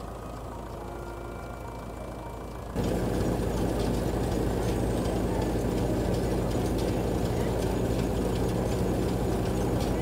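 A tractor engine runs steadily, belt-driving a threshing machine. About three seconds in, the sound steps abruptly much louder and fuller, with a dense mechanical noise over the continuing engine hum.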